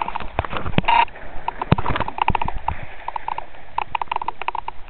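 Sea water splashing and slapping at a sailing yacht's side as dolphins surface alongside, with a run of short, irregular knocks.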